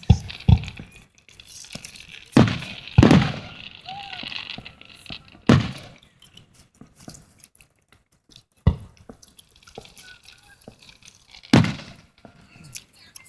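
Fireworks shells bursting overhead: about seven loud booms at irregular intervals, each trailing off in an echo, with a stretch of fainter crackling pops between them in the second half.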